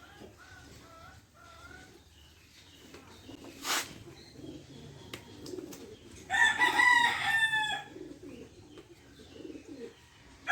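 A rooster crowing once, loud and about a second and a half long, with fainter calls from farther off at the start. A single sharp knock comes a couple of seconds before the crow.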